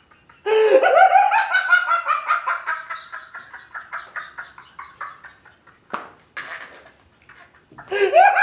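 A man laughing loudly in a long burst that starts about half a second in and trails off. A sharp knock comes about six seconds in, then loud laughter breaks out again near the end.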